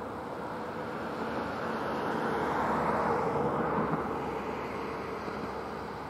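A vehicle passing by: a steady rushing noise that grows louder toward the middle and then fades away.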